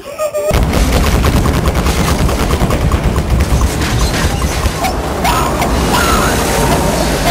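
Loud rumbling noise full of dense, rapid crackling, starting abruptly about half a second in.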